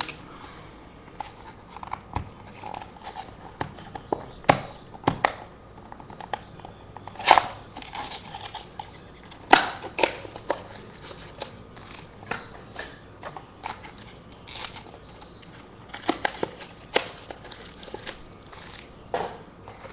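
Small cardboard mini boxes being torn open and the packs of cards inside handled: scattered tearing, rustling and light taps.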